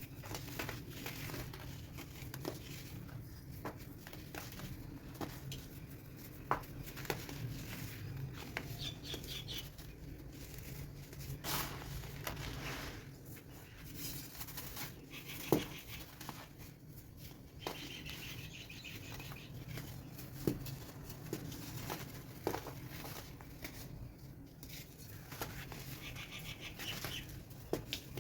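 Chunks of dried baking soda being crushed and crumbled: soft crunching and crackling with scattered sharp snaps.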